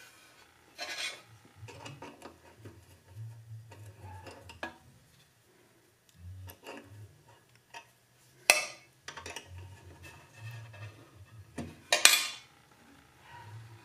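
Small metal clicks and scraping as a bandsaw's side blade guide is positioned by hand and its set screw tightened with a hex key. Two sharper metallic clinks come past the middle and near the end.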